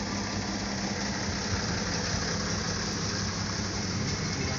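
Vehicle engine running steadily with a low hum, heard from inside the cab over a steady hiss.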